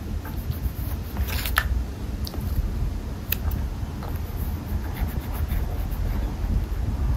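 Soft, scattered clicks and rustles of kittens batting and biting a wand toy on a fleece blanket, over a steady low rumble.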